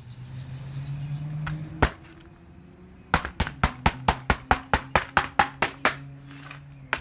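A rock striking the glass back of an iPhone 4: one sharp blow, then after a pause a fast run of repeated blows at about five a second.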